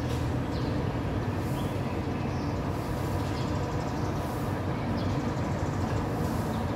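Steady low rumble of nearby road traffic, with faint short high chirps here and there.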